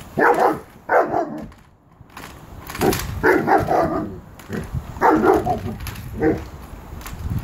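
Alaskan malamute barking and woofing in short bursts, about six times, at a shopping trolley it is wary of.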